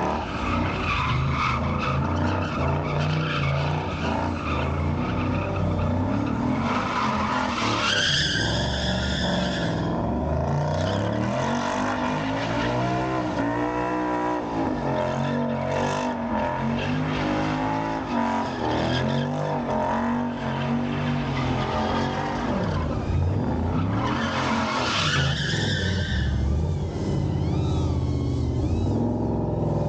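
Late-model Ford Mustang doing donuts: the engine revs up and down continuously while the rear tyres spin and skid on the pavement. A loud, high tyre squeal rises about 7 seconds in and another about 24 seconds in.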